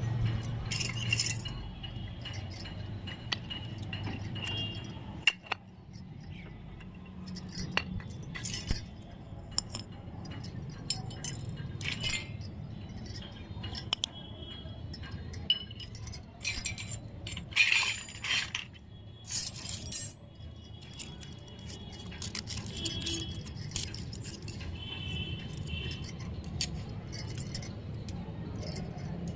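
Miniature stainless-steel toy utensils (small plates, pans and spoons) clinking and ringing as they are handled and set down on concrete, in scattered clusters of light metallic taps, the loudest a little past halfway.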